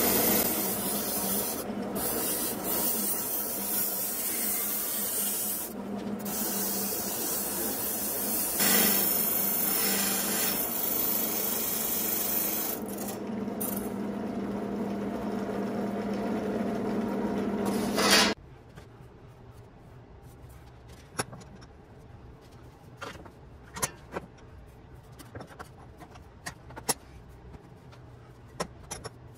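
A drill press spinning a wire brush with a rusty steel license plate pressed against it: a steady motor hum under loud scraping as the brush strips rust from the metal. The scraping cuts off suddenly about 18 seconds in, leaving only scattered light clicks and taps.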